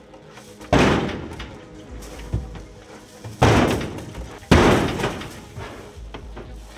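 Three heavy bangs against the aluminium livestock trailer, each ringing off over about a second: one about a second in, then two more close together near the middle, over background music.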